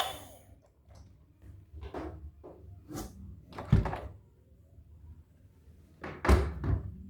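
Toys and their packaging being handled: a few scattered knocks and thumps, the heaviest a dull thump a little under four seconds in and another pair near the end.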